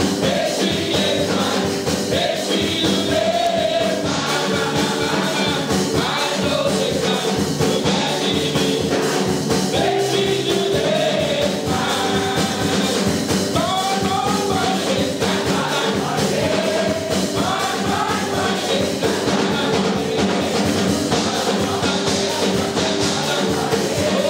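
Men's gospel singing group performing a praise song with a live band, a drum kit keeping a steady beat under the voices.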